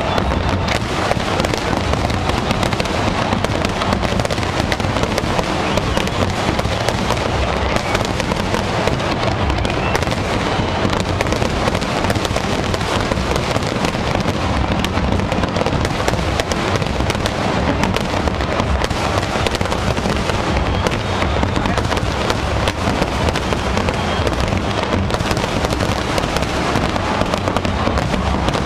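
Large fireworks display: a dense, unbroken barrage of shells bursting, with constant crackling and low booms and no pauses.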